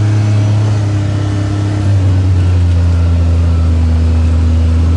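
Side-by-side off-road vehicle's engine running steadily under way, heard from inside the cab, with its pitch dropping slightly and getting a little louder about two seconds in.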